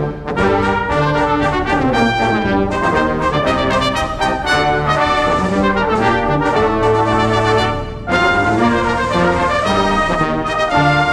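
Brass ensemble of cornets, trumpets, trombones and tubas playing a march, with a short break about eight seconds in before the full band comes back in.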